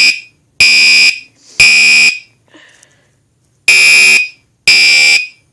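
Gentex Commander 3 (GECB24PWB) fire-alarm horn sounding very loud, harsh half-second blasts about a second apart in groups of three with a longer pause between groups: the temporal-3 evacuation pattern.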